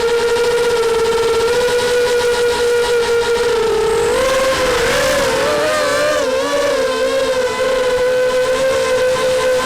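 DRS180Pro FPV racing quadcopter's 2206 brushless motors whining steadily in flight, the pitch wavering and splitting into several shifting tones for a few seconds in the middle as the throttle changes.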